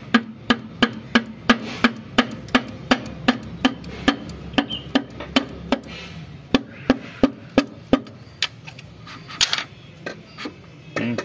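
Russian tractor piston being tapped down through a band-type ring compressor into its cylinder liner with the end of a hammer handle: quick, even knocks about three a second that thin out after about six seconds and stop a few seconds before the end, once the rings have gone into the bore.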